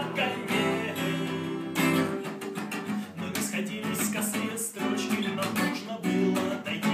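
Music: a strummed acoustic guitar playing chords in a steady rhythm.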